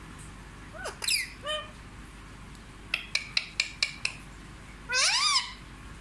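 Rose-ringed parakeet calling. It gives a couple of short calls about a second in, then six quick sharp chirps in a row, then a loud rising-and-falling screech near the end.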